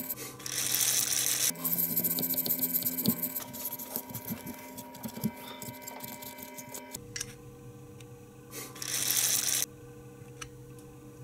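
Scratchy rubbing of a cotton swab and tissue wiping flux off a throttle body's circuit board and metal housing, in two spells of steady hiss with small handling clicks between them.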